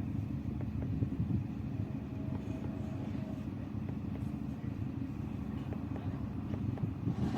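A steady low mechanical rumble, like a motor or engine running.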